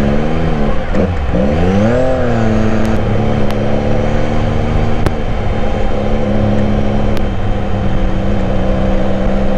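Benelli Cafe Racer 1130's inline three-cylinder engine heard from the rider's seat on the move. The revs rise and fall twice in the first two seconds or so, then hold a steady note as the bike cruises.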